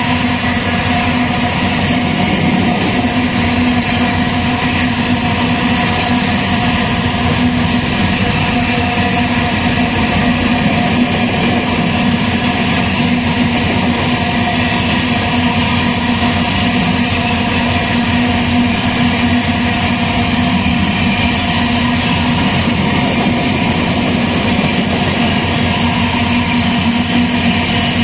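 Diesel-electric locomotive working mid-train in a long loaded iron ore train, its engine running steadily with a fast low pulse and a held drone of several tones, over the rumble of the ore cars rolling by.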